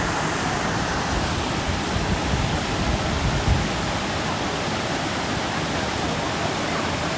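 Waterfall rushing steadily, an even roar of falling water. A few low bumps on the microphone between about two and three and a half seconds in.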